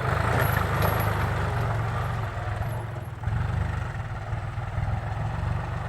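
1992 John Deere 52-horsepower diesel tractor engine running steadily as the tractor is driven up a slope. Its level dips briefly about three seconds in, then picks up again.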